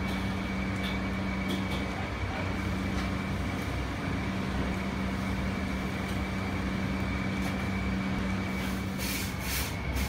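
Rita/Windy industrial exhaust fans running, a steady hum with a low tone and a faint high whine over a low rumble. A few brief clicks or rattles come near the end.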